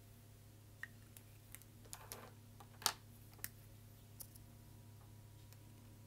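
A few short sharp clicks and taps of plastic felt-tip markers being put down and picked up on a wooden tabletop, the loudest about three seconds in, over a faint steady hum.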